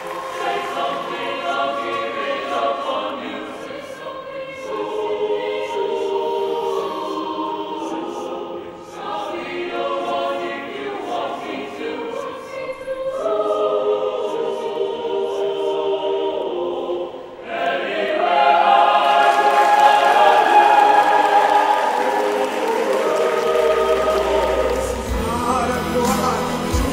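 Choir singing in sustained chords, in phrases with short breaks between them. It grows louder and fuller about two-thirds of the way through, and a deep bass tone comes in near the end.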